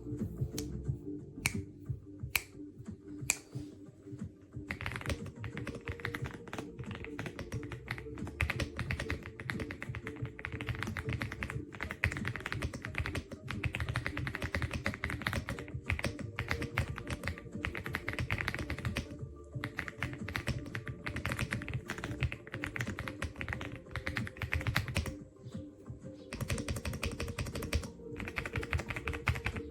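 Typing on an EPOMAKER x Aula F75 gasket-mounted mechanical keyboard: a dense, fast run of keystroke clicks, with background music. The keystrokes are sparse for the first few seconds, then run thick with two short pauses, about two thirds and five sixths of the way through.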